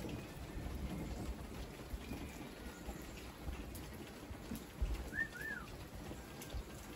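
Rain falling steadily during a thunderstorm, with two short high chirps about five seconds in.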